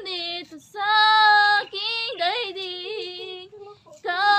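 A woman singing unaccompanied, holding long notes with a wavering vibrato and pausing briefly for breath near the end.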